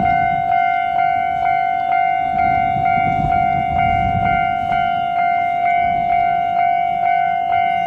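Japanese railway level-crossing alarm ringing, a steady bell-like tone struck about twice a second, warning that a train is approaching.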